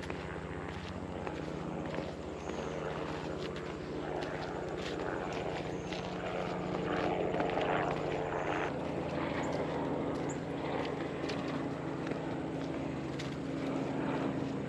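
A helicopter's engine and rotor droning steadily, growing a little louder about halfway through.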